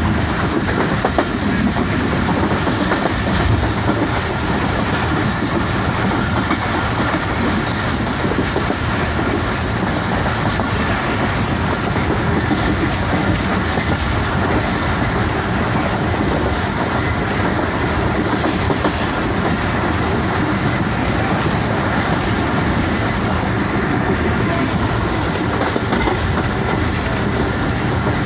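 Passenger train running along the track, heard from on board through an open window: a loud, steady noise of the wheels on the rails.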